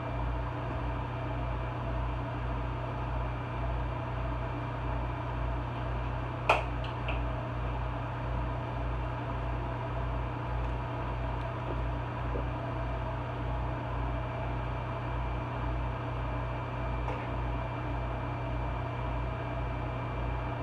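Steady low hum of a fan motor, like an over-the-range microwave's vent fan running, with a slight pulsing underneath. One sharp clink comes about six and a half seconds in.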